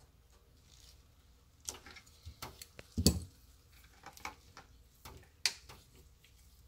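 Irregular small clicks, taps and rustles of wires and a rubber grommet being pushed through the plastic back of a headlight housing by gloved hands, with one louder knock about three seconds in.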